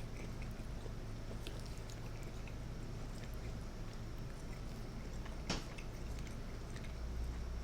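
Close-miked chewing with faint small mouth clicks, one sharper click about five and a half seconds in, over a steady low hum.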